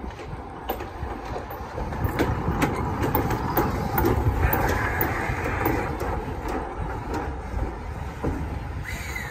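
Steam-hauled passenger train running on the rails: a steady low rumble with irregular clicks of the wheels over the track, growing louder a little past the middle. A brief high squeal near the end.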